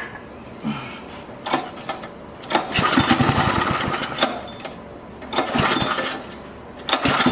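Briggs & Stratton 5 hp flathead single-cylinder engine being started, firing in short bursts with gaps between them; the longest run lasts about a second and a half, near the middle.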